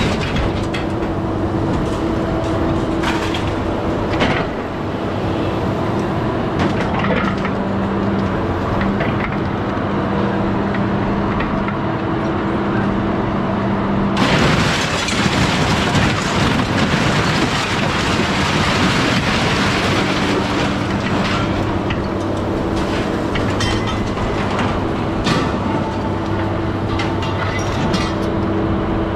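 A truck-mounted grapple loader's engine and hydraulics running steadily while its grapple handles scrap metal, with clanks and knocks of metal throughout. About halfway through comes a long, dense crashing clatter of scrap lasting several seconds.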